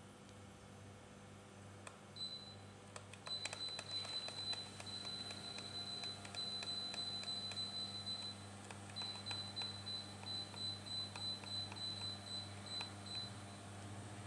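Mitsubishi Electric air conditioner running with a low steady hum. From about two seconds in, a thin high-pitched whine with rapid light ticking joins it, pulsing on and off in the second half.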